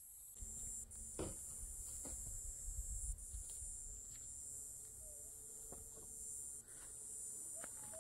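A steady high-pitched chorus of insects. Under it are a low rumble in the first few seconds and a few sharp knocks, and there are brief animal calls near the end.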